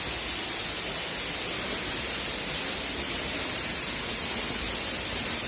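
Steady rushing hiss of falling water from a waterfall, even and unbroken throughout.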